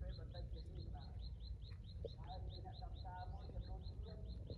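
Steady, rapid chirping: a short, falling high note repeated evenly about five times a second, with faint voices in the background.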